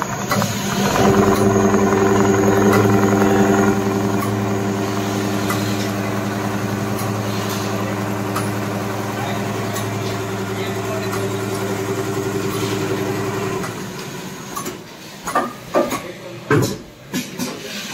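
Richpeace computerised pattern sewing machine running at speed, its sewing head stitching through perforated automotive leather with a steady, even hum. About 14 seconds in the hum stops, followed by a run of sharp mechanical clicks and knocks.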